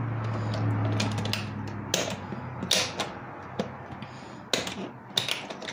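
Scattered plastic clicks and knocks of a Ninja blender's lid being fitted and pressed onto its pitcher without locking, which she thinks may be turned the wrong way.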